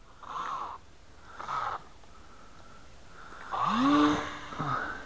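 RC plane's motor and propeller heard from the plane's onboard camera, throttled up in short bursts with rushing air; about three and a half seconds in it spools up in a rising whine and holds its pitch briefly.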